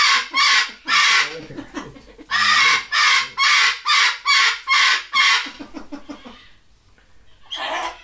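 Cockatoo squawking over and over, about two calls a second, with a short break around two seconds in. The calls die down near six seconds, and one more call comes near the end.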